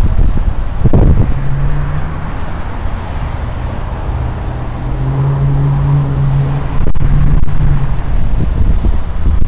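Street traffic: a motor vehicle engine hums steadily for several seconds, with low gusts of wind buffeting the microphone.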